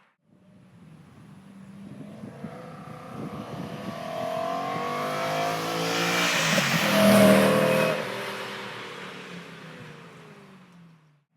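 BMW E9X M3 with its 4.0-litre S65 V8 and an aftermarket exhaust driving past. The engine note gets louder to a peak about seven seconds in, then fades away with a drop in pitch.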